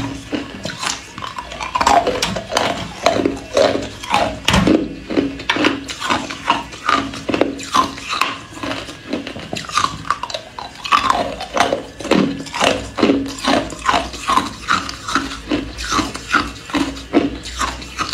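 Hard ice cubes being bitten and chewed, a dense, irregular run of sharp cracks and crunches, several a second.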